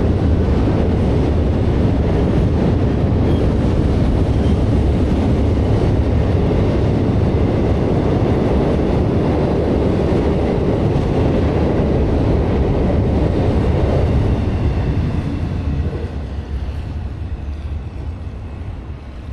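Freight train of intermodal container cars rolling across a railway drawbridge, a loud steady rumble of wheels on rail that starts fading about fifteen seconds in as the end of the train passes.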